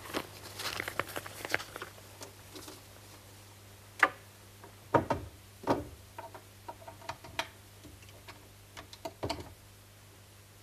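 Paper rustling and small clicks, then scattered knocks and light clinks of objects being handled and moved about inside a wooden cabinet. The loudest knocks fall about four and five seconds in.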